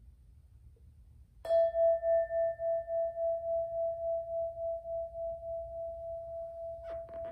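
A singing bowl struck once about a second and a half in, ringing on one steady tone with a wobbling, pulsing beat as it slowly fades; its brighter overtones die away within a couple of seconds. A few soft clicks near the end.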